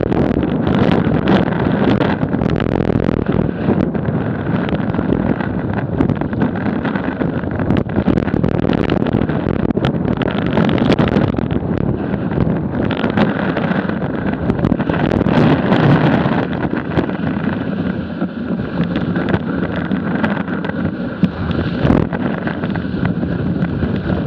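Snowboard sliding and carving over choppy packed snow, its edges scraping, under a continuous rush of wind on the board-mounted camera's microphone.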